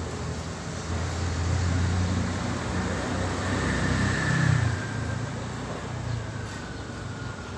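A motor vehicle passing on a nearby road, its low engine rumble building from about a second in, loudest around four and a half seconds, then fading away.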